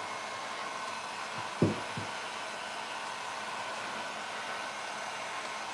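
Handheld electric heat gun running steadily, a fan hiss with a faint motor whine, blowing hot air onto a painted metal colander. A sharp knock about a second and a half in, with a softer one just after.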